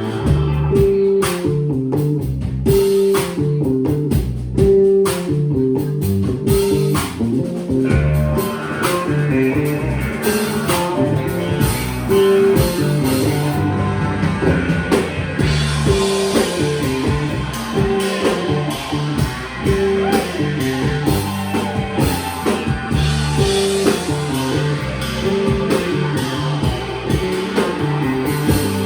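Live blues-rock band playing an instrumental breakdown: a guitar and bass riff over drums. The first several seconds are sparse, then the full kit with cymbals fills in about eight seconds in.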